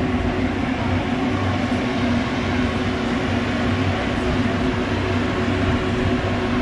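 Steady machine-like hum: a few held low tones over an even wash of noise, unchanging throughout.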